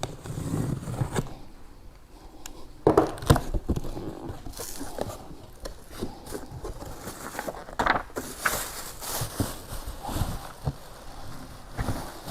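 Packaging around a new beadlock wheel being opened and handled: irregular rustling and crinkling with scattered knocks, the loudest about three seconds in.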